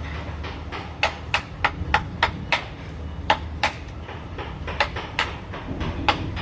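Hammer taps on wood in sharp, irregular strokes, a few a second, with a short pause about two-thirds of the way through, over a steady low hum.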